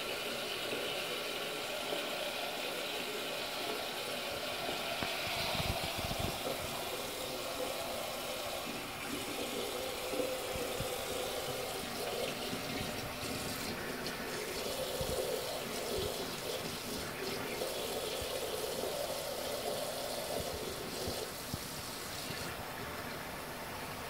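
Bathroom sink tap running a thin stream into the basin, a steady splashing, with a couple of soft knocks about six seconds in.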